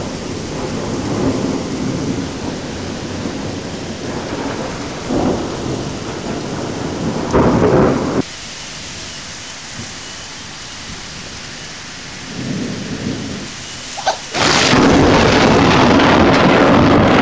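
Thunderstorm: thunder rumbling over steady rain, with a louder roll of thunder about seven seconds in. About fourteen seconds in, the sound jumps abruptly to a much louder, dense hiss of heavy rain.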